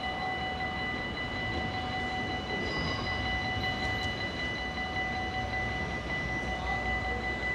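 NS DM '90 diesel multiple unit approaching on the rails, its rumble building slowly, with a level-crossing bell ringing steadily over it.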